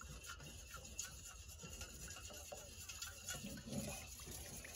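Faint swishing of water being stirred in a stainless steel bowl to dissolve a little fresh yeast for bread dough.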